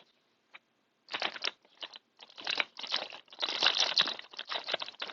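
Paper food wrapper crinkling and rustling in irregular bursts, starting about a second in and growing busier toward the end.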